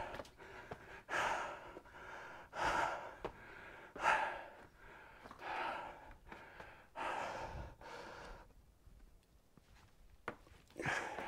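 A man breathing hard from the effort of climbing, with deep breaths about every second and a half that grow quieter near the end.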